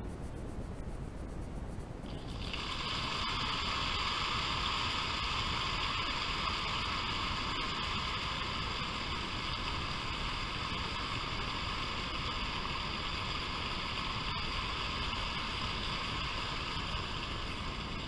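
Audience applauding at the end of a classical concert performance, heard over a radio broadcast; the applause starts about two seconds in and holds steady.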